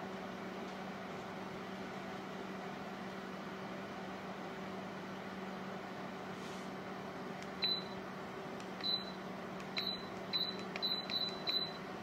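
Voweek 1500W ceramic tower space heater's fan running with a steady hum. From about seven and a half seconds in, the heater gives seven short, high beeps at uneven intervals as remote-control presses lower its set temperature.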